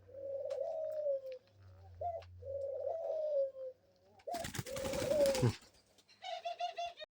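Pet dove cooing: three drawn-out notes that slide down in pitch, then a quick run of short pulsed coos near the end. A loud burst of rustling noise comes about four seconds in, over the third coo.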